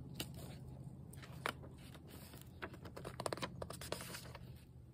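Paper pages of a book being turned: a few soft rustles, then a quick run of flicks about three seconds in, over a faint low hum.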